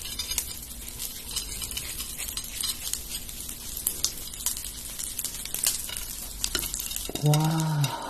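Popping candy crackling and fizzing on a moist sheet of clear jelly, a dense run of tiny pops. Near the end a voice briefly exclaims "wow".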